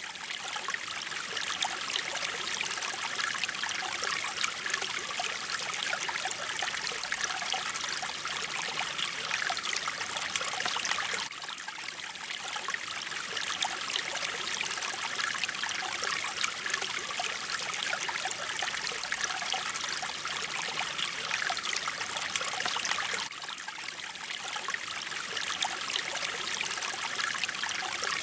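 Mountain stream flowing steadily, water trickling and splashing over stones in an even rushing hiss, with brief dips in level about eleven and twenty-three seconds in.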